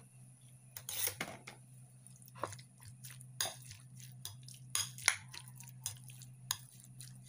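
Metal spoon clinking and scraping irregularly against a ceramic bowl as raw chicken pieces are stirred with ginger and garlic, over a low steady hum.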